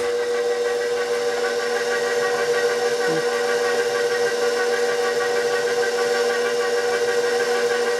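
KitchenAid bowl-lift stand mixer running steadily with its flat beater, mixing flour, water, salt and yeast into a wet batter. A constant motor whine holds one pitch throughout.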